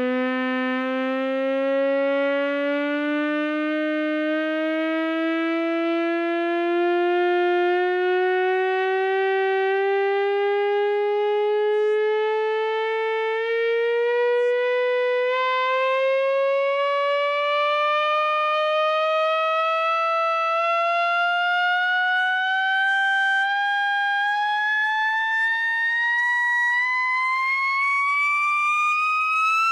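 Tannoy Monitor Silver 15-inch dual concentric loudspeaker playing a sine-sweep test tone from a signal generator: one steady tone rising slowly and evenly in pitch, from a low hum up to a high whistle, with fainter overtones above it. It is a frequency test, sweeping through the generator's second range.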